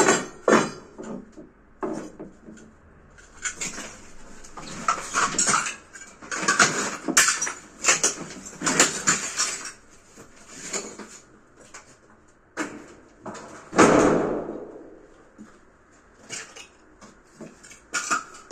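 Ceramic wall tiles being broken and pulled off a concrete wall by hand: irregular clinks, clatter of tile shards and scraping, with a louder crash of falling pieces about 14 seconds in.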